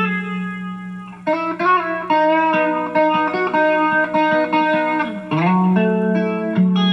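Electric guitar played through an effects pedalboard, its notes ringing over one another with long sustain. A fresh run of notes comes in about a second in and another around five seconds.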